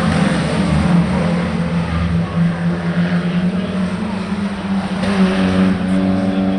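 Car engine running loud and steady, with a strong low hum that holds its pitch.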